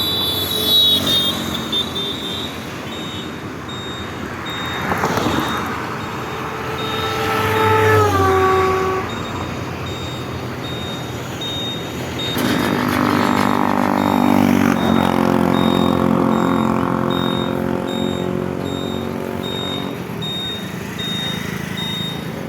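Road traffic with vehicle horns. About a third of the way in, a horn drops in pitch as its vehicle passes; past the middle, a lower horn sounds for about two and a half seconds.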